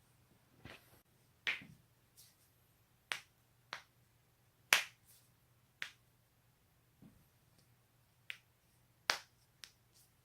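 A person cracking their own joints: a series of about ten sharp pops at irregular intervals, the loudest about halfway through.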